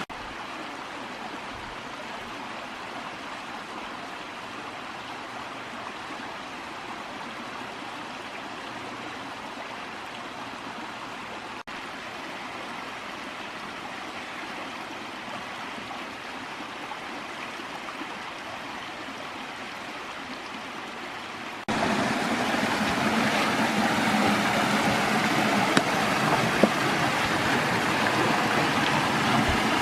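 Small woodland creek running over rocks in little cascades: a steady rush of water that suddenly gets louder about two-thirds of the way through.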